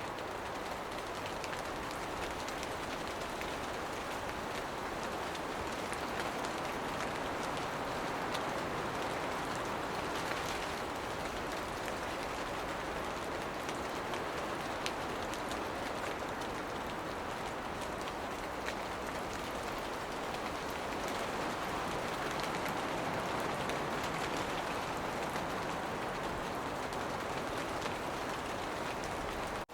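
Steady rain shower in a forest: an even hiss of falling rain, with many individual drops ticking sharply on near surfaces.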